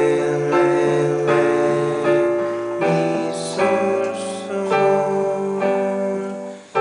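Piano playing a chord progression with the melody on top, a new chord struck about once a second. It is a harmonisation of a given melody with a sus4 chord in place of a D7, which the teacher still finds awkward.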